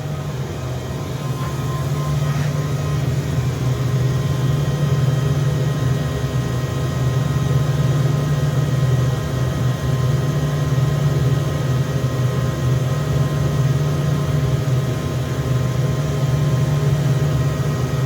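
Rogers KI-10 10 hp rotary screw air compressor running steadily inside its full sound enclosure: a constant low hum with several steady higher tones. It is not hooked up to an air line, so it is not building pressure.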